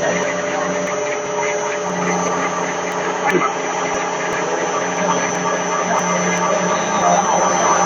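Screw rotor milling machine running: a steady hum with several held tones over an even mechanical noise.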